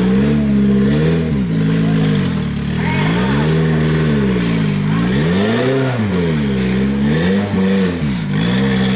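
Off-road 4x4's engine revving up and down again and again, the pitch rising and falling in swells every second or two.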